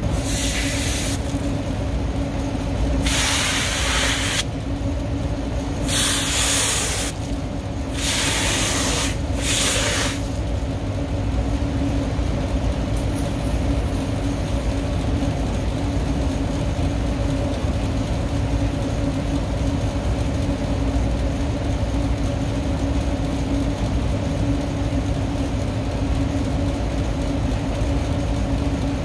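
Hand pump sprayer hissing out foaming coil cleaner onto a greasy evaporator coil in five short bursts over the first ten seconds, each lasting a second or so. A steady low machine hum runs underneath.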